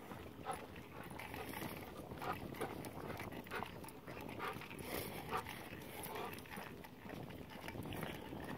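Walking footsteps on a concrete sidewalk at a steady pace, about two steps a second.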